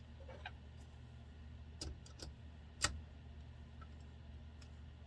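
A few scattered sharp clicks and taps from bolts and small tools being handled on a chainsaw crankcase while its case bolts are fitted, the loudest nearly three seconds in, over a steady low hum.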